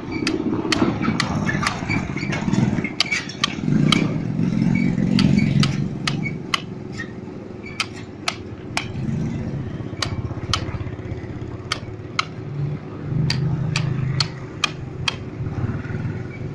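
Hand hammer striking a steel chisel about twice a second, chipping out a test hole in compacted crushed-stone road base for a sand-cone density test. An engine rumbles steadily underneath the strikes.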